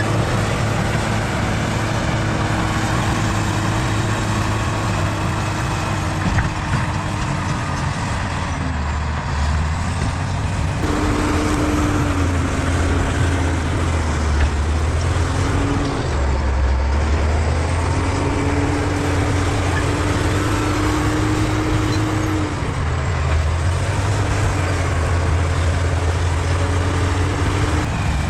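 Bulldozer's diesel engine running hard while pushing soil, a steady heavy drone whose note drops and recovers a few times as the load changes.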